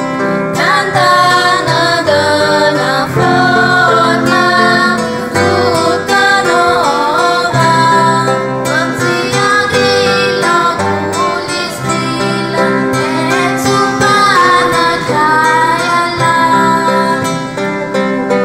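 A choir singing a Christmas song to instrumental accompaniment, the sung melody moving over held lower notes.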